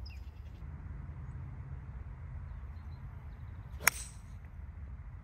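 A golf club striking a ball once, a sharp click about four seconds in, over a steady low rumble.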